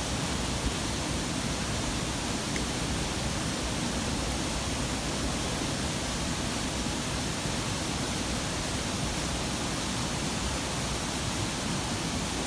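Steady outdoor background noise: an even rushing hiss, heaviest in the low end, with no distinct events.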